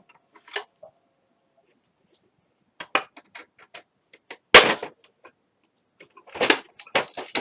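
Plastic clicks and knocks as a triangular piece is worked out of an Xbox One console's case, with one loud sharp snap about four and a half seconds in.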